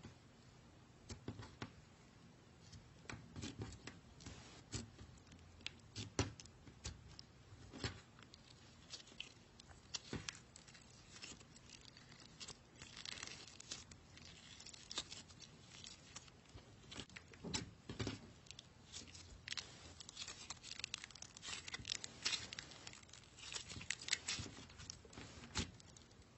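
Slime being squeezed and stretched by hand: irregular sticky clicks, pops and crackles, bunching into denser crinkly runs partway through and again near the end.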